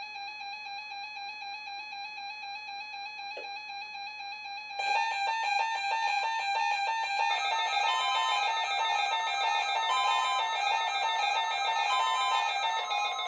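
First Alert WX-167 weather radio sounding its alert alarm for a Required Weekly Test: a steady electronic tone, joined about five seconds in by further beeping tones that pulse rapidly, then settle into a layered, repeating beep pattern.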